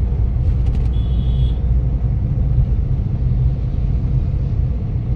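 Steady low rumble of engine and road noise inside the cabin of a moving Suzuki car. A brief high-pitched beep sounds about a second in.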